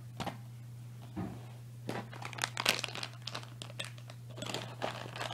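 Crinkling and rustling of a small pouch being handled and rummaged through. It comes as a few scattered crackles at first, then a dense run of short, irregular crackles from about two seconds in, over a steady low hum.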